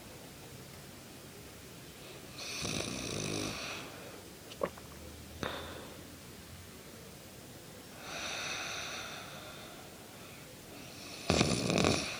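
A woman snoring: three long snores about five seconds apart, the last one the loudest and roughest. Two short clicks come between the first and second snores.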